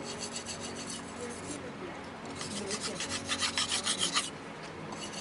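Steel kitchen-knife blade stroked back and forth on a whetstone, a rhythmic scraping. It comes in a short run near the start and a faster, louder run of quick strokes in the middle.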